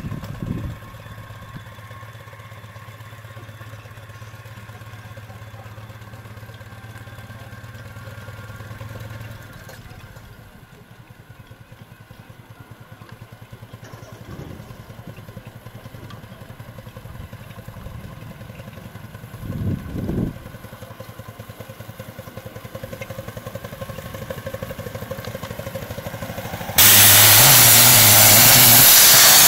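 Scale-model Case steam traction engine running, with quick, regular pulses and a few short louder thumps. About 27 seconds in, a sudden loud, steady hiss of steam venting begins.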